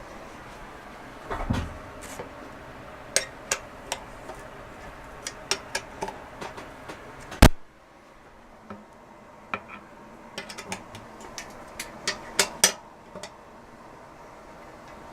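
Metal tool clicks and clinks as an 8mm Allen key snugs down the rear wheel's axle bolts in the BMX frame's dropouts: scattered sharp clicks, a low thump about a second and a half in, and a louder knock about seven and a half seconds in.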